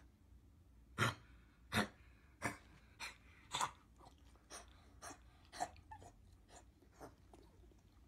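Beagle coughing in a fit of about eleven short, harsh hacks, roughly one every 0.6 s. The first five are the loudest and the rest grow weaker. This is the hacking cough of kennel cough (canine infectious respiratory disease).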